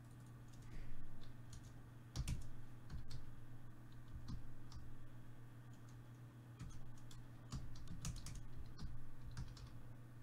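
Typing on a computer keyboard: irregular runs of key clicks as a name is entered, over a steady low hum.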